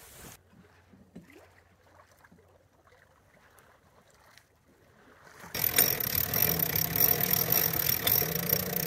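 Faint lapping and small creaks aboard a sailboat under way, then about halfway through a loud, steady rush of wind and water noise with a faint hum in it.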